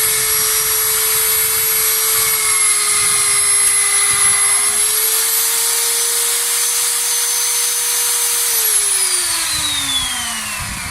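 Feinko Cayken magnetic-base drill's motor running a TCT annular cutter with a steady whine, its pitch rising slightly about halfway through. Then it is switched off and the whine falls steadily in pitch as the motor winds down.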